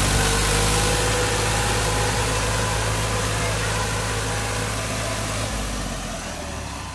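Eicher 380 tractor's diesel engine running as the tractor drives, getting quieter near the end as its deepest rumble drops away.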